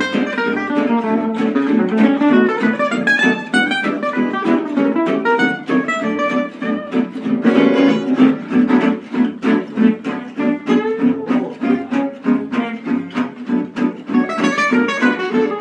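Acoustic gypsy-jazz guitars jamming: a chordal rhythm strummed at about four to five beats a second under a fast single-note lead line.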